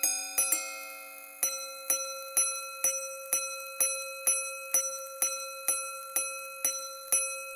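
Patek Philippe Grandmaster Chime Ref. 5175 striking the time on its gongs. A paired two-tone strike comes first, then a run of about thirteen single strikes of the same higher gong, roughly two a second, each ringing on and fading. This is the pattern of a minute repeater sounding quarters and then minutes.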